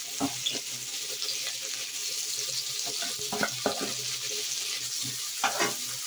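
Chopped onions sizzling steadily in hot oil in a metal kadai, with a few short scrapes and knocks of a spoon stirring against the pan.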